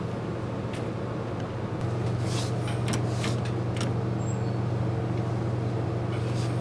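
A metal door lever handle rattled and jiggled, giving a few short metallic clicks, over a steady low hum.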